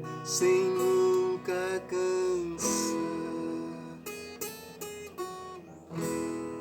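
Acoustic guitar-type instrument playing the instrumental ending of a sertanejo modão: a run of sharp strummed chords with ringing notes held between them.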